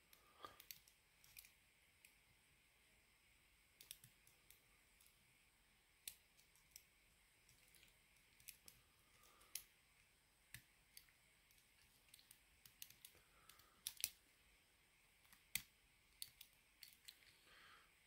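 Faint, irregular metal clicks and ticks of a hook pick working the pins inside a lock's keyway under a tension wrench, with the loudest click about three-quarters of the way through.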